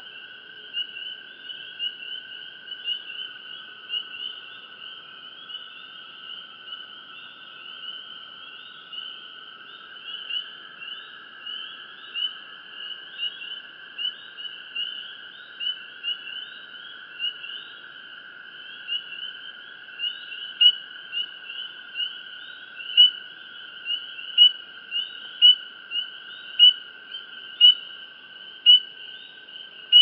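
Outdoor night chorus of calling creatures: a steady high trill runs under short, sharp chirps repeating about once a second. The chirps grow louder in the second half.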